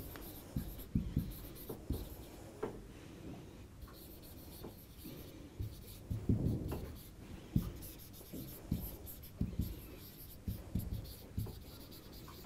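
Marker pen writing on a whiteboard: a run of short, irregular strokes and taps as words are written out.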